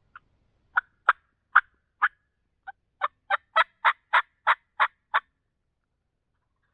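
Turkey calls: a string of about fourteen short, sharp notes, a few spaced ones first, then from about three seconds in an even run of yelps about three a second that stops a little after five seconds.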